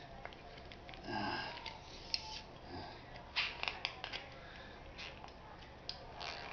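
Crinkling, crackling clicks of a spray can being crushed and twisted by hand, thickest about three and a half seconds in, with effortful breaths now and then.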